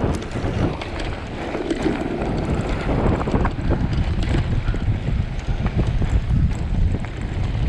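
Wind buffeting the camera microphone while a mountain bike rides down a rough trail, with scattered rattles and knocks from the bike over the ground.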